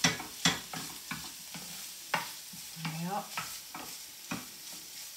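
Minced meat, onions and tomato puree frying in a pan with a steady sizzle, stirred and scraped with a spoon in regular strokes about twice a second, the first two the loudest.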